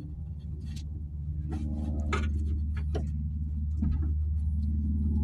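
Metal tools clicking and scraping inside a car door as pliers try to grip a nylon piece behind a spinning Torx bolt, over a steady low hum.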